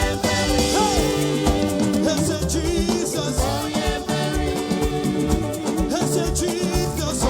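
Live upbeat gospel band music with a steady dance beat, a bass line and sustained keyboard chords.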